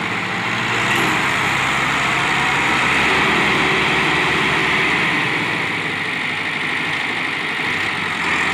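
Massey Ferguson 385 tractor's diesel engine running steadily, a little louder in the first half.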